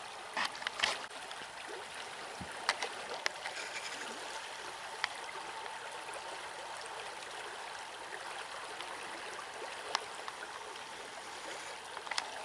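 Steady rushing of a flowing river, with a few short sharp clicks over it.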